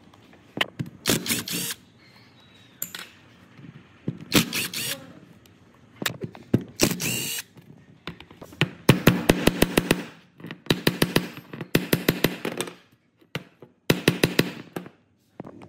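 Metal parts handled and knocked on a workbench, with several short runs of rapid, evenly spaced clicks or taps in the second half, typical of hand tools worked on a power-tool housing.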